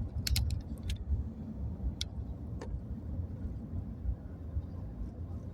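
Steady low road and engine rumble heard inside a moving vehicle's cabin, with a few light clicks in the first three seconds.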